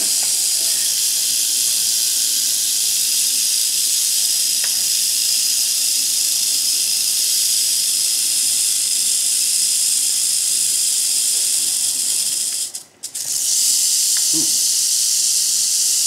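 Mojave rattlesnake rattling its tail: a continuous high buzz that cuts out for about half a second near the end, then starts again. The rattle of a defensive, agitated snake.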